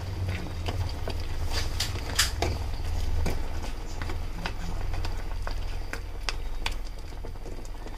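Wooden spatula stirring thick crab gravy in a frying pan, with irregular soft clicks and knocks as it strikes the pan, over a low steady hum.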